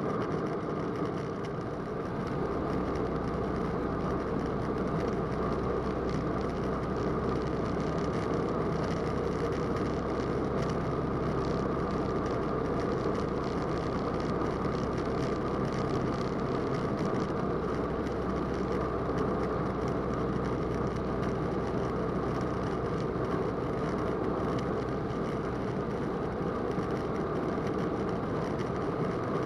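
Roland Aircraft Z602 ultralight's engine and propeller droning steadily in cruise flight, heard inside the cockpit. A low hum underneath grows a little stronger about two seconds in.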